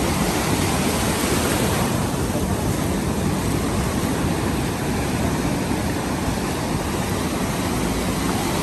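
Ocean surf breaking and washing through the shallows: a steady, dense rush of water noise.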